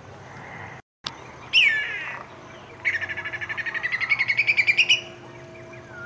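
Whistling kite calling. It gives one loud falling whistle, then a rapid run of short notes, about ten a second, that rise slightly in pitch and grow louder over about two seconds.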